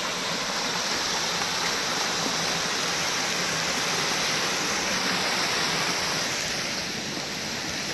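Small woodland stream cascading over rocks: a steady rush of water that eases a little near the end.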